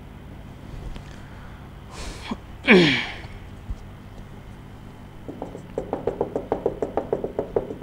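Marker tip tapping rapidly on a whiteboard, about six taps a second, as dots are stippled into a drawing; the tapping starts about five seconds in. Before it, just under three seconds in, comes one short loud sound that falls sharply in pitch.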